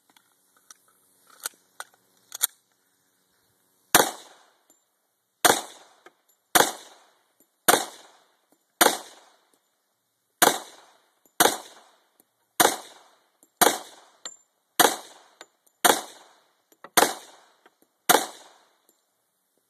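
A Glock 21 .45 ACP pistol firing thirteen shots at a steady pace, roughly one a second, after a few sharp clicks in the first couple of seconds.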